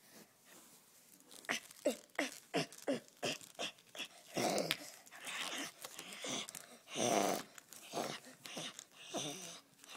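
Growling and snarling voice: a quick run of short falling grunts, about three a second, then longer, harsher growls, the loudest about seven seconds in.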